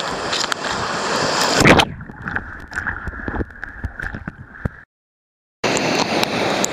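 Whitewater rapids rushing and splashing right against the microphone. About two seconds in the sound turns muffled and dull as the camera goes under the water, then cuts out for under a second, and the open rushing of the rapids returns near the end.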